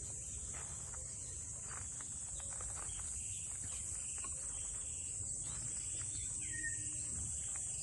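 Steady high-pitched insect drone, unbroken throughout, over a low rumble.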